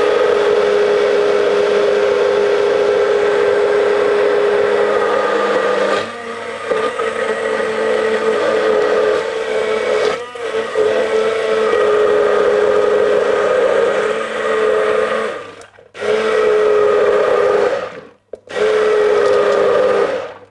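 Philips immersion blender running in a plastic jug, whipping garlic, salt and vegetable oil into a white emulsion. A steady motor whine that eases about six seconds in, then stops and restarts twice near the end.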